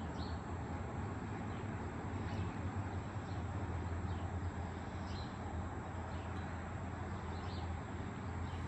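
Steady low rumble of distant highway traffic, with a few faint, short high chirps from birds.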